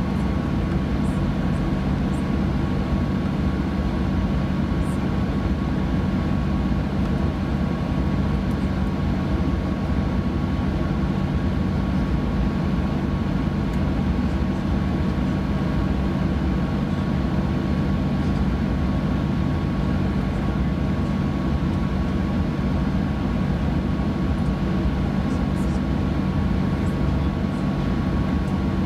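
Steady cabin drone inside a Boeing 737-900: an even low hum with a faint steady high tone above it.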